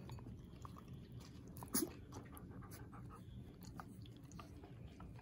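Husky puppies about four weeks old suckling at their mother: faint wet smacking and clicking, with one brief louder sound a little under two seconds in.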